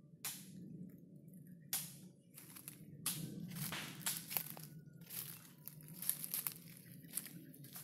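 Footsteps crunching through dry leaf litter, uneven steps coming about once every half-second to second.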